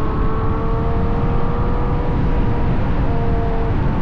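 Ferrari GTC4Lusso's V12 with a Capristo exhaust running at road speed, heard from outside the car, its note rising slowly over the first couple of seconds. A heavy low rumble of wind and tyre noise lies under it.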